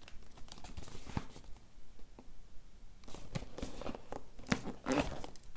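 Cardboard box being handled and turned over in the hand: scattered rubbing and scraping sounds in two spells, the busier one in the second half, ending in a sharp click.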